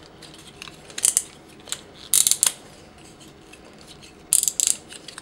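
Plastic joints of the Mastermind Creations Felisaber transforming-robot figure clicking as its legs and feet are folded by hand, in several short bursts of clicks.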